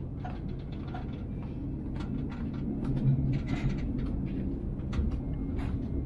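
Steady low rumble of a ship's interior, with scattered light clicks and knocks throughout.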